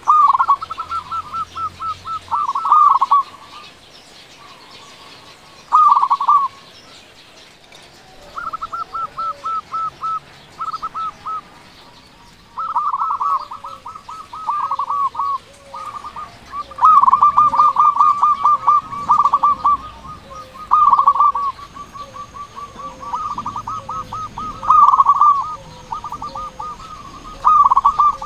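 Zebra dove (perkutut) singing loudly: bouts of rapid staccato cooing notes, phrase after phrase with short pauses between them.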